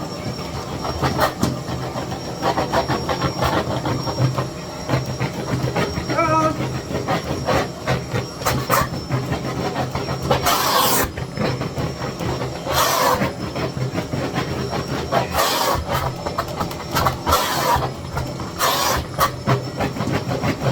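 Miele Blizzard CX1 bagless vacuum cleaner running steadily, with many small clicks and rattles and several short, louder rushes of air.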